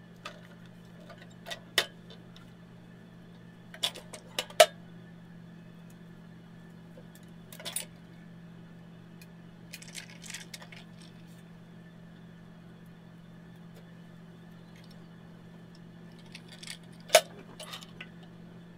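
Drawers of a small steel mini toolbox handled by hand, slid and pushed shut, with scattered clicks, clinks and knocks from the metal and the bits in their inserts; the sharpest knocks come about four and a half seconds in and near the end. A steady low hum runs underneath.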